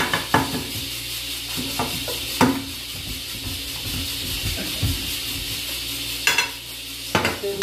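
Pressure cooker hissing steadily on the stove as it holds pressure, with a few sharp knocks and clatters of kitchen utensils being handled on the counter.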